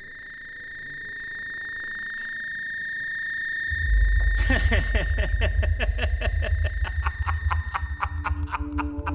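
Suspense film score: a steady high tone swells louder, then about four seconds in a deep low rumble comes in under a fast pulsing rhythm of about four beats a second.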